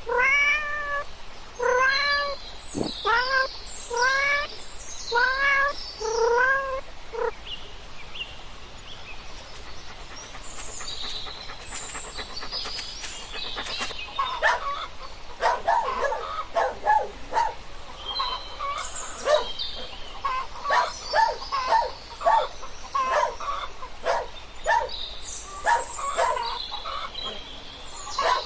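A cat meowing over and over, about one meow a second, for the first seven seconds or so. After that comes a busy stretch of short chirping calls and sharp clicks.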